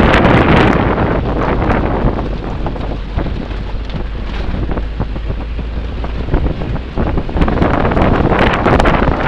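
Heavy wind buffeting on the microphone from a moving vehicle, over the vehicle's low rumble on a rough dirt road with scattered knocks from the bumps. The wind is strongest at the start, eases in the middle and picks up again near the end.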